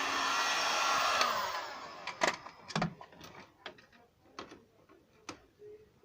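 Hot-air blower running with a steady hiss, switched off about a second in, its whine falling away. Then a series of sharp clicks and taps at irregular intervals.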